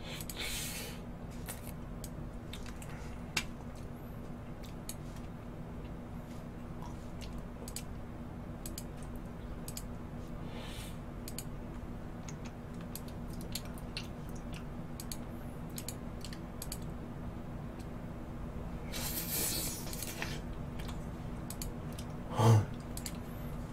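Quiet room tone with a steady low hum, dotted with faint scattered clicks and small taps. A short hiss comes about 19 seconds in, and a brief low vocal sound comes near the end.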